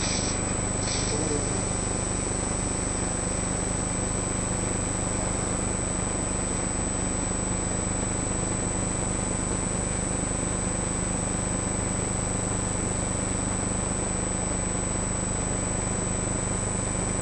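Steady low electrical or machine hum with hiss and a thin high whine; two short hissy bursts in the first second or so.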